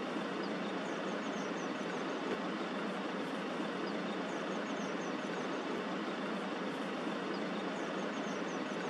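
Steady noise of a vehicle engine idling, with faint high chirps coming in short quick runs about every three seconds.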